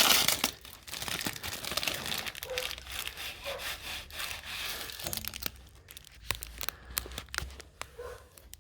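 Protective plastic film being peeled off and crumpled, a crinkling, tearing rustle that is loudest at the start and thins out after about five seconds into scattered light clicks and taps.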